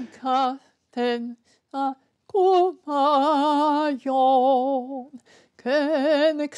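An elderly woman singing unaccompanied in a classically trained voice: three short notes, then long held notes with a wide vibrato, in separate phrases.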